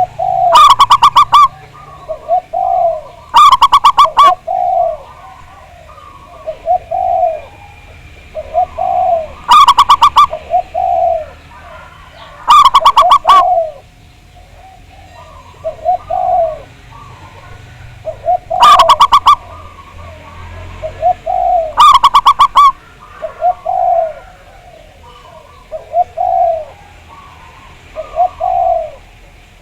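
Zebra doves (perkutut) cooing. Six loud, distorted phrases of rapid coo notes come every few seconds, with softer coos from other doves in between.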